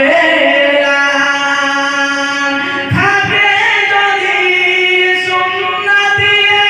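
A man singing a Bengali Islamic gazal alone, drawing out long held notes with slow bends in pitch; the first note breaks off about three seconds in and a new phrase begins.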